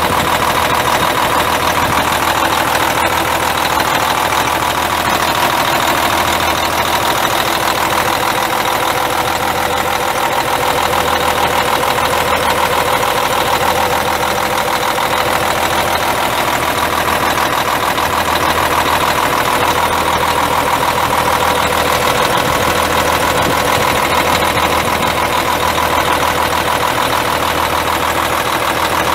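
Cummins ISM 10.8-litre inline-six turbo diesel of a 2003 Freightliner Columbia semi truck, idling steadily.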